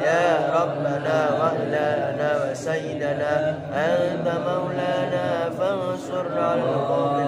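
A man's solo voice reciting the Quran in Arabic, chanted melodically in long drawn-out phrases with gliding pitch, and a short break for breath between phrases.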